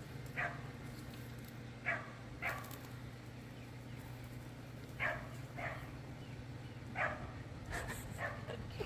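A dog giving short yips and barks, about nine of them at uneven intervals, over a steady low hum.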